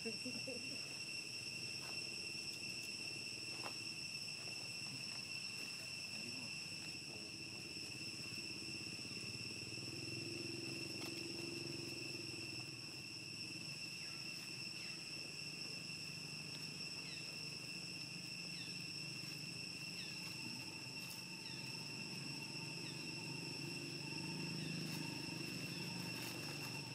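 Insects droning in a steady, high, unbroken whine over a low background noise, with a few faint short chirps near the end.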